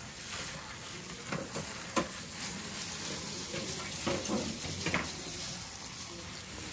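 A plastic-gloved hand squishing and kneading raw minced meat in a stainless steel bowl: wet squelching and stirring, with a few sharp clicks of hand or glove against the bowl, the sharpest about two seconds in.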